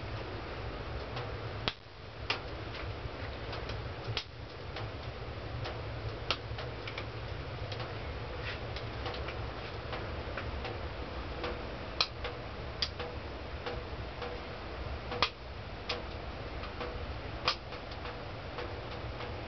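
Irregular sharp clicks and crackles, several to a second, with a few louder snaps in the second half, over a low steady hum.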